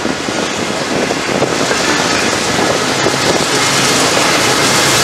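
Freight train passing close by: the steady rumble and rattle of double-stack container cars, growing louder as a mid-train diesel locomotive draws alongside, its engine's low drone coming in about three seconds in.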